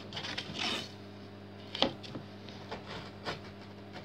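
Knife blade scoring a thin wooden slat, drawn along the wood in short scraping strokes, with a sharp click just under two seconds in. A low steady hum runs underneath.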